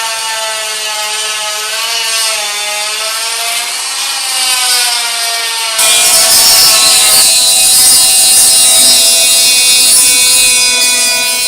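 Handheld power tool running as it works flexible joint filler out of a concrete crack, its motor whine wavering slightly in pitch. About six seconds in it turns abruptly louder, with a harsh grinding noise on top of the whine.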